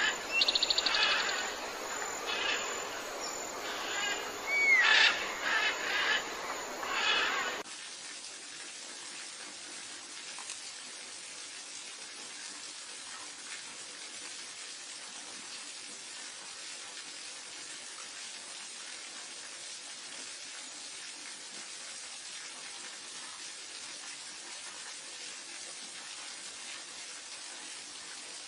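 Wild birds chirping and calling, with a quick trill and a short whistle that rises and falls, for about seven seconds; the calls then cut off abruptly and only a steady faint hiss remains.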